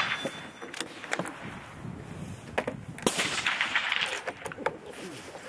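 A rifle shot about three seconds in, sudden and then dying away over about a second, with a few light clicks before it.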